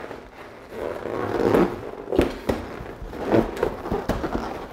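Inflated latex balloons rubbing and squeaking against one another as a cluster is twisted onto a balloon column, with several sharp clicks among the rustling.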